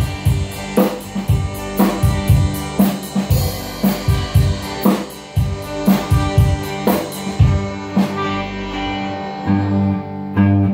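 Small rock band playing live in a room: a drum kit (bass drum, snare and cymbals) keeps a steady beat under strummed guitar and bass. About eight seconds in the cymbals stop and held low bass notes carry on.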